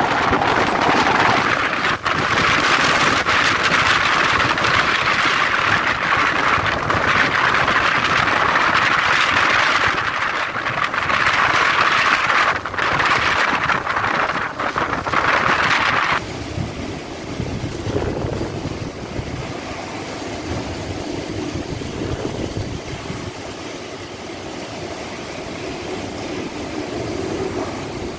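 Tropical-storm wind and heavy rain, a loud steady rush of wind-driven rain. About sixteen seconds in it drops suddenly to a quieter, lower rushing of wind and rain.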